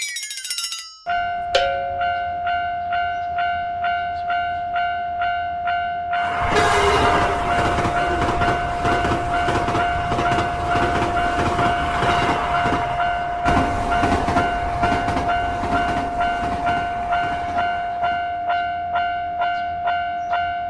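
Electronic railroad crossing warning bell ringing about twice a second over a steady tone, starting about a second in after a falling whistle-like tone. From about six seconds in a train passes with loud rumble and wheel clatter, which dies away near the end while the crossing bell keeps ringing.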